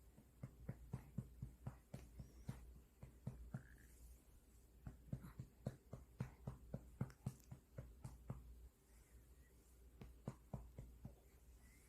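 Soft, rhythmic pats on a baby's back to bring up a burp, about four a second, in three runs separated by short pauses.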